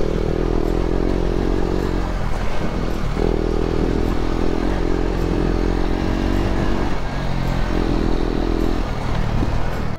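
Motorcycle engine running steadily while riding, its note dipping briefly a few times.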